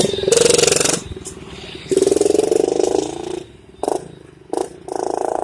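Hero Glamour single-cylinder motorcycle engine revved in a series of short throttle blips, each rising and falling away, with two quick sharp blips about four seconds in; the exhaust has been changed to give a louder note.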